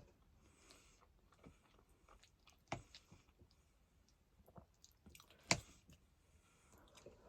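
Quiet chewing and mouth sounds from someone eating, broken by a few sharp clicks. The loudest comes about five and a half seconds in.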